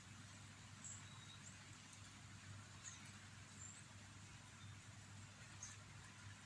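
Near silence: a low steady hum, with a few faint, brief high chirps.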